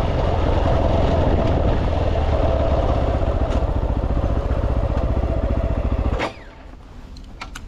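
Fantic XEF 250's single-cylinder four-stroke engine running steadily, then cutting off abruptly about six seconds in.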